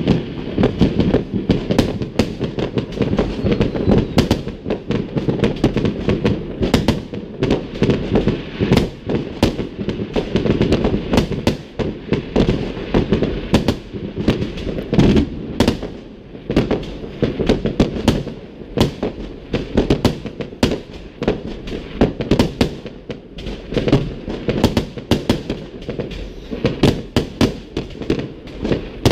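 Fireworks display: a continuous barrage of bangs and crackling, several a second, over a steady low rumble.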